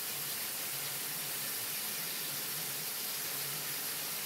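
Steady, even hiss of paint being sprayed by automated spray-painting robots, with a faint low hum beneath.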